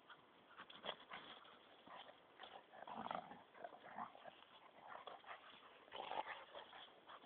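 Two dogs play-fighting, giving short, irregular bursts of dog vocalising, loudest about three and six seconds in.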